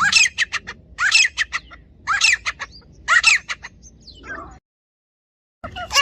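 Grey francolin calling: a loud harsh phrase followed by a quick run of short sharp notes, repeated about once a second. The sound cuts to dead silence for about a second near the end, then the calling starts again.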